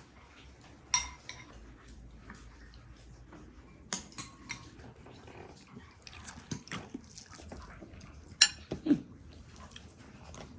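Kitchenware being handled: scattered clinks and knocks, the sharpest about a second in, about four seconds in and about eight and a half seconds in, the last followed at once by a brief low-pitched sound.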